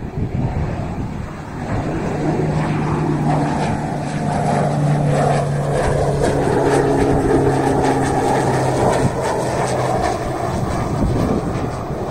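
Beechcraft T-6 Texan II's PT6A turboprop engine and propeller passing low on landing approach, with gear down. The sound swells about two seconds in and holds a steady low propeller drone until near the end.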